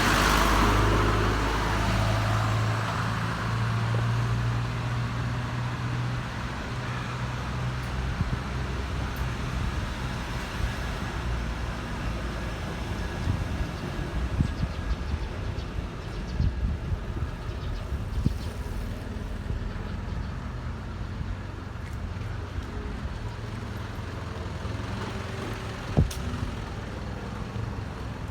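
Tow truck's engine running with a steady low hum, loudest in the first couple of seconds and then settling, with scattered knocks in the middle and one sharp click near the end.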